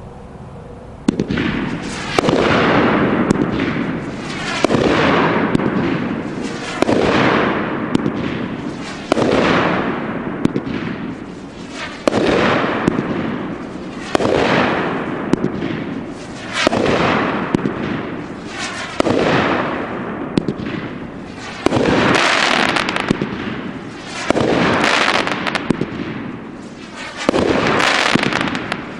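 A 16-shot, 1-inch-tube 500 g consumer firework cake firing shot after shot, about one every two seconds. Each shot starts with a sharp report and trails off over a second or two before the next.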